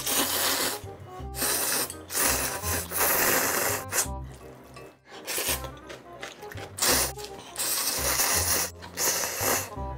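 Loud slurping of spicy ramen noodles, several long noisy pulls with brief pauses between them, over background music.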